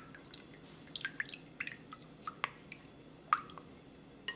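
Wooden spoon stirring a thin liquid sauce in a glass bowl, with small irregular splashes and clicks.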